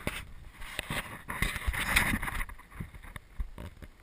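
Handling noise from a GoPro camera being turned and shifted: rubbing and scraping with a few knocks, loudest for about a second near the middle.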